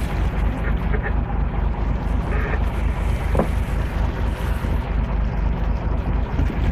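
A small boat under way at sea: a steady low rumble of the motor mixed with wind buffeting the microphone.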